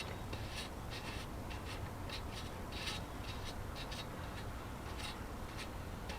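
Irregular short scraping and rubbing strokes, a few a second, from hand work on a JB Weld epoxy repair on an alloy wheel rim.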